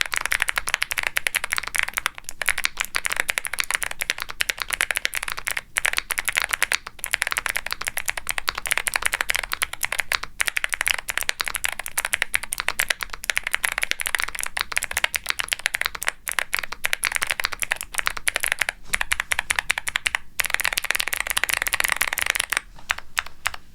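Fast, continuous typing on a Womier SK75 mechanical keyboard with Gateron Melodic clicky switches, a polypropylene plate and GMK double-shot ABS keycaps. Each keypress gives a crisp click and then a deeper pop as the key bottoms out. The typing breaks off for a moment a few times and grows softer near the end.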